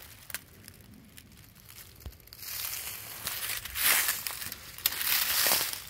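Footsteps pushing through thick brush, crunching and crackling leaves and undergrowth. It is quiet with a few faint snaps for the first couple of seconds, then loud crunching steps follow from about halfway in.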